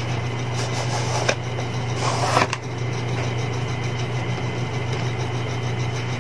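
Cardboard phone box being opened: a short rustle as the sleeve slides off, then a louder scraping slide about two seconds in as the lid is pulled free, ending in a click, over a steady low hum.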